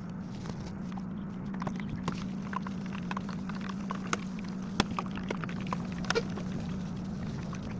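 Banana fritters frying in hot oil: irregular small crackles and pops scattered throughout, with a few sharper ticks, over a steady low hum.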